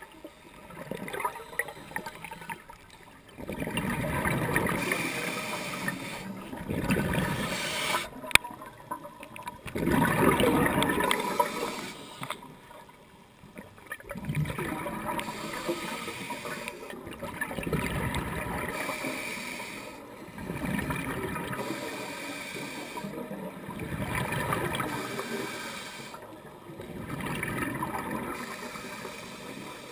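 Scuba diver breathing through a regulator underwater: a gurgling burst of exhaled bubbles about every three to four seconds, eight in all, with quieter gaps between. One sharp click about eight seconds in.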